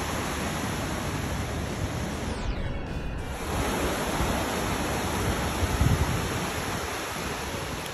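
Sea surf breaking and washing up a sandy beach: a steady rushing hiss of waves.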